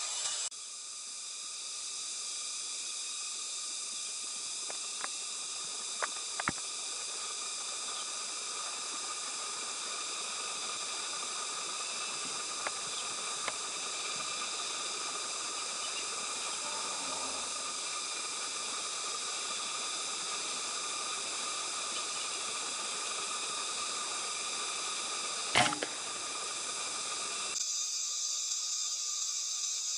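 Steady outdoor hiss with a faint even buzzing texture, broken by a few soft clicks and one sharp, louder knock about twenty-five seconds in.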